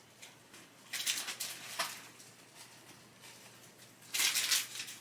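Trading cards being handled: two short bursts of rustling and sliding, about a second in and near the end, with a few light ticks between.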